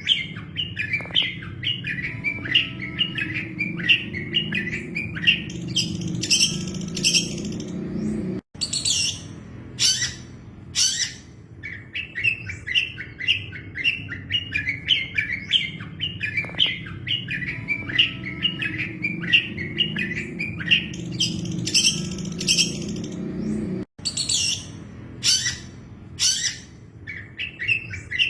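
Long-tailed shrike (cendet) singing a fast, chattering run of repeated chirps, broken up by sharp high-pitched notes, over a steady low background rumble. The song cuts out for an instant twice, about 8.5 and 24 seconds in, then starts the same sequence again.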